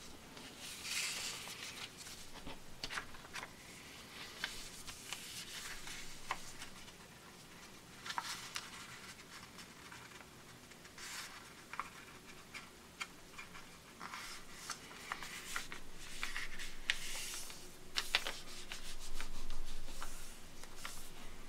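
A sheet of paper being folded and creased by hand into a paper airplane: irregular rustling and crinkling, with sharp little snaps and swishes as fingers press and run along the folds.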